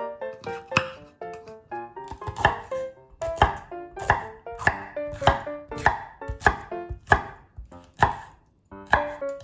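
Kitchen knife chopping food on a cutting board in steady strokes, a little under two a second, with a short pause near the end.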